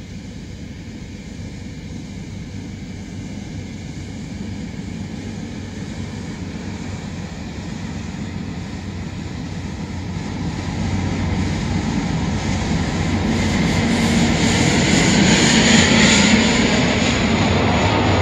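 Turbine sound of a Union Pacific 'Big Blow' gas turbine-electric locomotive: a jet-like roar that grows steadily louder, with a high whine on top that peaks near the end as the locomotive passes.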